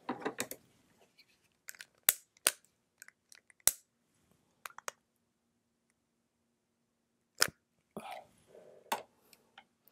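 A handful of short, sharp clicks and light knocks spread over several seconds, with a brief rustle at the start: a pillar candle and small objects being picked up, handled and set down on a table.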